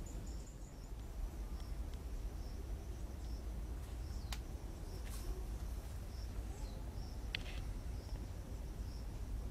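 Insect chirping in short, high, regular pulses, about one every two-thirds of a second, over a low steady rumble. A few sharp clicks fall partway through.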